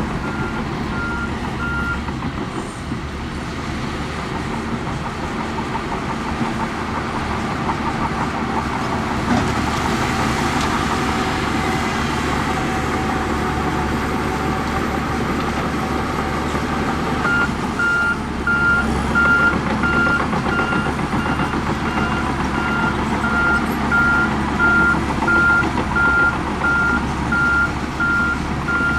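Diesel engine of heavy earthmoving machinery running steadily, with a reversing alarm beeping about twice a second at the start and again from a little past halfway to the end.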